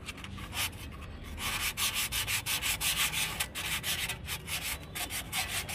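Fine P400 sandpaper, rolled into a tube, rubbed back and forth inside the bore of a drum-brake wheel cylinder. It makes quick scratchy strokes, about three a second, getting louder about a second and a half in. The rough bore is being polished smooth for new rubber cups.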